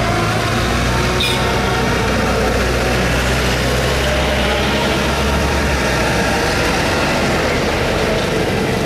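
Heavy vehicle engine running steadily at low speed, a deep hum over general street noise; the hum drops back about six seconds in.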